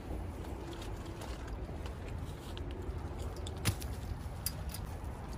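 Steady low wind rumble on the microphone by open water, with a single sharp click a little before four seconds in and a few faint ticks.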